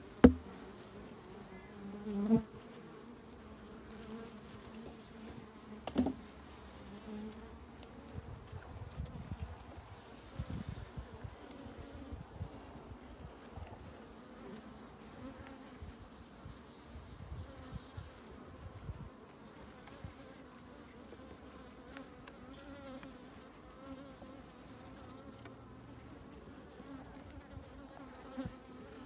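Honeybees buzzing over an opened hive: a steady hum whose pitch wavers. A sharp knock right at the start is the loudest sound, with softer knocks about two and six seconds in.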